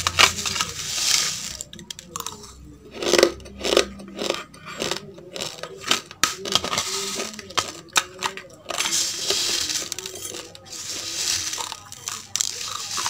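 Close-miked crunching of raw basmati rice grains being chewed, a dense run of sharp crunches. Dry rice grains rustle and scrape against a plastic bowl as fingers pick through them, in stretches near the start and toward the end.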